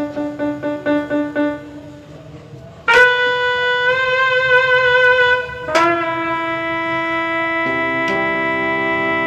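Casio electronic keyboard through its built-in speakers: a single note repeated quickly about seven times, then from about three seconds in long held notes in a wind-instrument-like voice with a slight vibrato, building to a held chord near the end. The keyboard is being tried out after its broken key pads were repaired.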